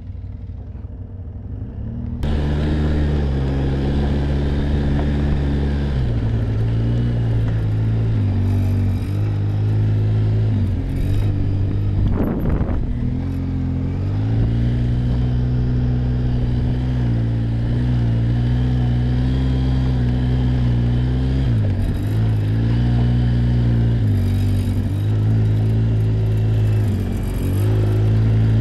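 ATV (quad bike) engine, low for the first two seconds, then getting louder as the quad moves off and runs along a gravel trail. Its pitch dips briefly and comes back up several times, and there is one short noisy burst about twelve seconds in.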